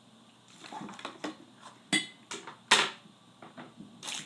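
Eating an ice cream sandwich: a string of short clicks, rustles and breathy mouth noises, the loudest just before three seconds in.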